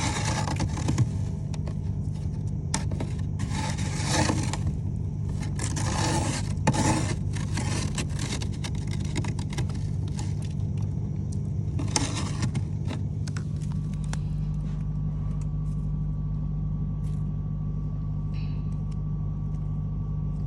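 Frost being scraped from a mini fridge's freezer compartment: a run of scraping strokes, densest around 4, 6 to 7 and 12 seconds in, that stops about 13 seconds in, leaving a steady low hum.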